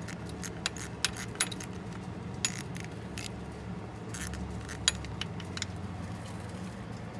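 Irregular sharp metallic clicks and clinks of a hand tool working on a dirt bike's oil drain bolt, over a steady low hum.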